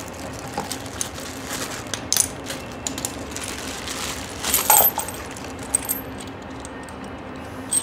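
Small metal hardware (bolts, washers, nuts and spacer collars) clinking as hands rummage through a plastic bag of wheel-kit parts, in scattered light clicks with a louder metallic jingle about four and a half seconds in.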